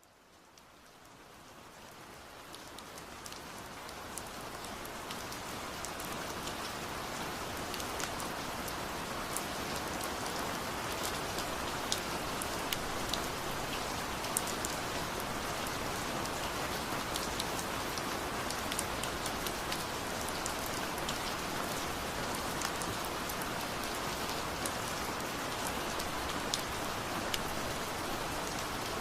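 Steady rush of falling water with scattered sharp drip and splash ticks, fading in over the first few seconds.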